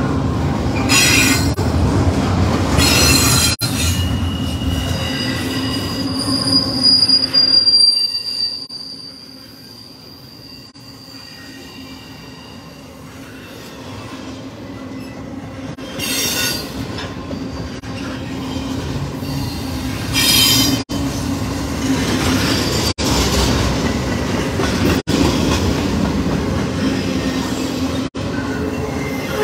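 Double-stack intermodal freight train of container well cars rolling past, with a steady rumble and wheels squealing on the rail. The sound drops away for a few seconds about eight seconds in, then builds again as more cars pass close by.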